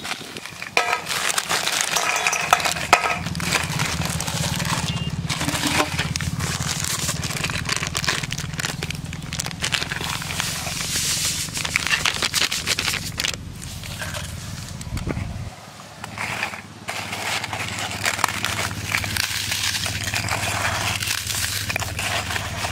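Plastic packets crinkling, then dry biscuits being crushed and mixed with flour by hand on a metal plate to make fishing bait: a dense, crackling run of small crunches and scrapes. A low steady hum lies underneath.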